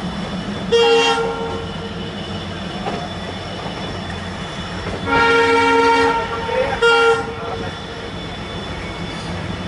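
Diesel locomotive horn sounding three times, a short blast, a longer one of about a second, then another short blast, over the steady running rumble of a passenger train on the move.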